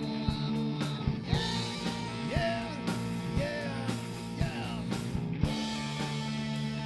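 Rock music with a steady drum beat and guitar, with a melody line that bends up and down in the middle.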